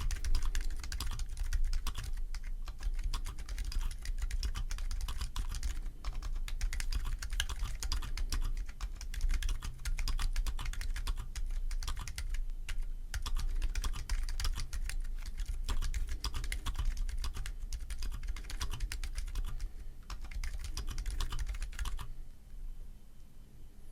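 Typing on a Keychron Q2 aluminium-case mechanical keyboard with pre-lubed Gazzew Boba U4 silent tactile switches (62 g) and stock keycaps: a quick, uneven run of muted keystrokes, recorded with heavy gain. The typing stops about two seconds before the end.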